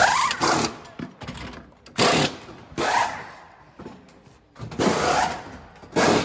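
A power tool fired in five short bursts about half a second long, each starting sharply, at uneven gaps of one to two seconds.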